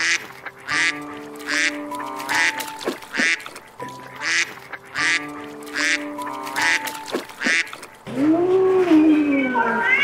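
Canada goose honking: a run of about a dozen short, sharp calls, then a longer, louder call that rises and falls in pitch near the end.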